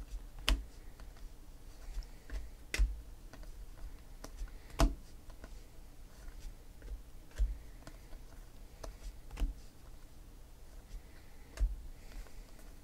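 Trading cards being shuffled by hand from one stack to the other, their edges giving sharp irregular clicks every two seconds or so, with lighter ticks and rustles between.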